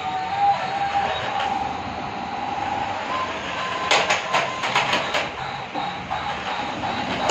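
Battery-powered remote-control toy stunt car running: its small electric motors whine steadily and its plastic wheels rattle on the stone floor. A quick series of sharp knocks about four to five seconds in as it bumps into the wall and tips over.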